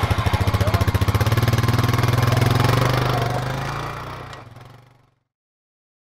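Four-wheeler (ATV) engine running steadily near idle, its exhaust pulsing evenly, then fading out about four seconds in, leaving silence.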